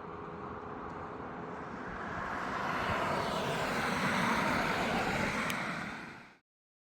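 Tyres of a passing vehicle rushing on asphalt, more tyre noise than engine, swelling to its loudest a few seconds in before the sound fades and cuts to silence near the end.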